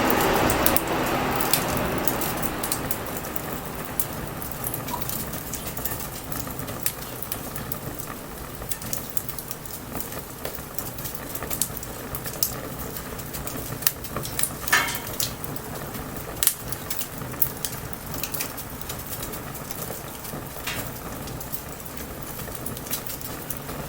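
Bonfire crackling with scattered sharp pops, under a steady hiss of light rain. A low rumble fades away over the first few seconds.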